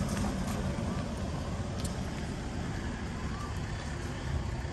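Pickup truck engine running at low speed up the road, a steady low rumble with outdoor street noise.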